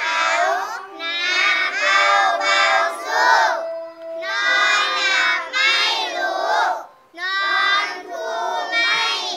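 A group of children singing or chanting together in high voices, in phrases of about a second with short breaks between them.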